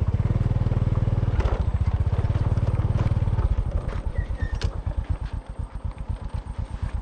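Small motorcycle engine running under throttle on a rough dirt track, then easing off about three and a half seconds in, the note dropping to slower, separate pulses. A few sharp rattles from the bike over the bumps.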